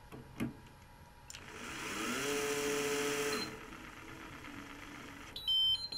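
Brushless current-controlled electric screwdriver (Nitto Kohki delvo) driving a machine screw into a steel plate. There is a click as the bit meets the screw head. The motor then soft-starts with a whine that rises in pitch and holds steady for about a second and a half. It cuts off abruptly once the screw seats on the hard joint and the set torque is reached. A short high-pitched beep follows near the end.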